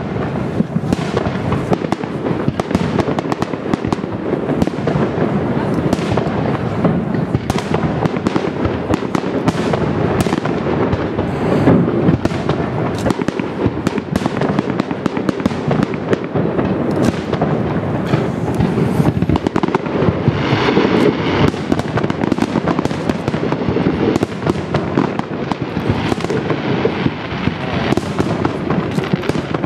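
Aerial firework shells bursting in quick succession, a dense run of overlapping bangs over a continuous low rumble.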